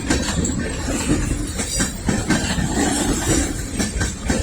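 Freight cars of a Norfolk Southern train rolling past. A steady low rumble is broken by irregular wheel clicks over the rail joints.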